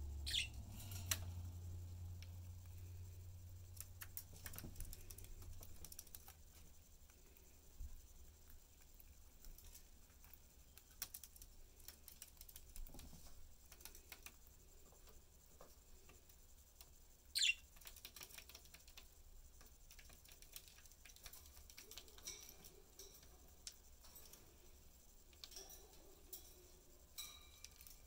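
Budgerigars moving about their cage: faint, scattered small clicks and taps of beaks and feet on wooden perches and the cardboard floor, with a short high falling chirp near the start and another a little past the middle.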